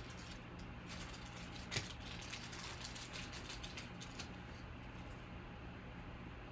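Trading cards and clear plastic wrapping being handled: rustling and light clicks, with one sharper click a little under two seconds in, dying down after about four seconds.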